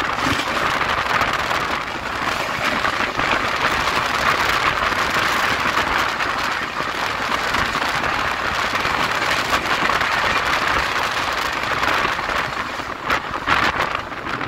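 Indian express train running at speed, heard from onboard: a loud, steady rushing noise of wheels on rail and wind, with a few sharp clacks near the end.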